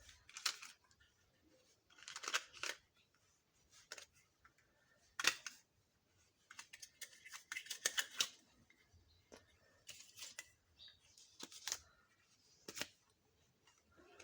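Small plastic toy kitchen pieces and their packaging being handled: an irregular string of light clicks, taps and rustles, with the sharpest click about a third of the way in.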